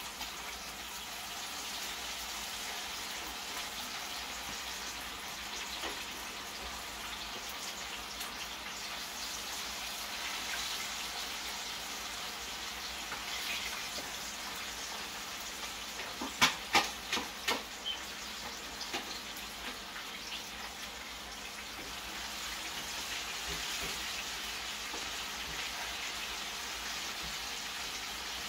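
Pieces of banga mary fish frying in hot oil in a skillet: a steady sizzle. About two-thirds of the way through comes a quick run of sharp clicks, a utensil knocking against the pan.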